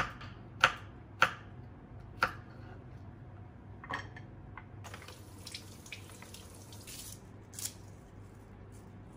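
Kitchen knife chopping garlic cloves on a wooden cutting board: four sharp knocks in the first couple of seconds. After that come lighter clicks and a few seconds of soft rustling and scraping as the pieces are moved onto a plate.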